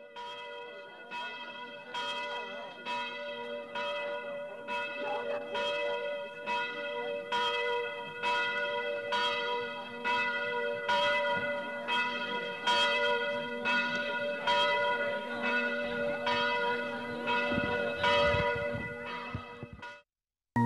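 Church bells ringing, with strokes a little more than once a second over a steady ring. The sound cuts off abruptly near the end, at a cut in the cassette-tape recording.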